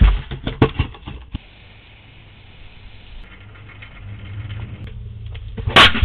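Security-camera audio of knocks and light thuds as a person moves on the porch steps and handles a cardboard box, over a steady low rumble that grows louder in the second half. A loud, sharp burst of noise comes near the end.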